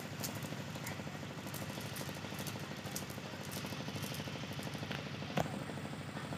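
Steady low motor hum, with faint scattered clicks and one sharper click about five seconds in.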